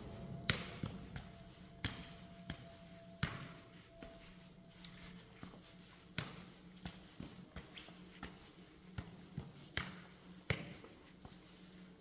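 Footsteps climbing hard indoor stairs: sharp, irregular shoe strikes about once or twice a second, some louder than others, over a steady low hum.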